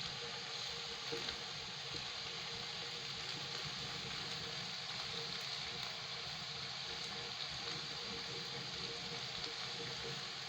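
Palm oil cooking with tomato paste and spices in a pot: a steady sizzle with a fine crackle.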